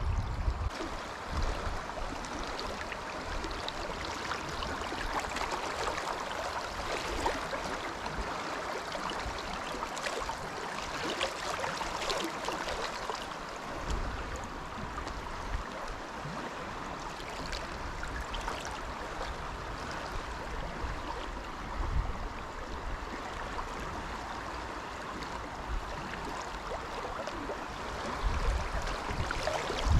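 Fast-flowing river water rushing steadily over a shallow stony run. A few dull low thumps come in now and then, near the start, midway and near the end.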